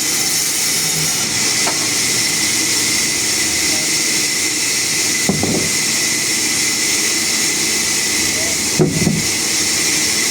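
Sawmill machinery running with a steady, high hiss, with a few brief louder sounds about five and nine seconds in.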